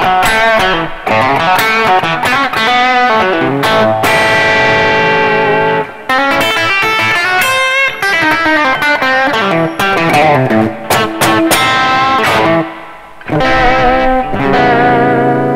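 PRS SE roasted-maple-neck electric guitar on its bridge humbucker, played through a Roland Cube amp's overdrive with reverb. Phrases of notes, with brief pauses about six and thirteen seconds in.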